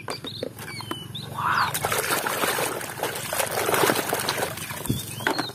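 Muddy water sloshing and splashing in a plastic tub as a hand swishes a toy around in it. The sound swells twice.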